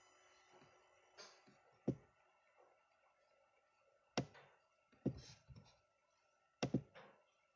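A handful of sharp clicks and knocks at uneven intervals, two of them close together near the end, over a faint steady electronic whine. These are typical of hands tapping or handling the recording device on a desk.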